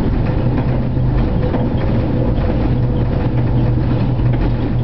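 Tram running along street track, heard from inside the driver's cab: a steady low hum with a faint steady whine over it and light rattling throughout.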